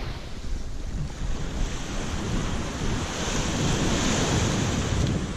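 Waves washing onto the beach, with wind buffeting the microphone as a steady low rumble; the wash swells about three seconds in.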